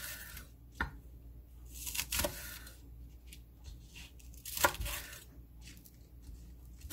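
Chef's knife cutting green onion stalks on a wooden cutting board: a few separate cuts, the blade knocking on the board each time, the loudest about four and a half seconds in.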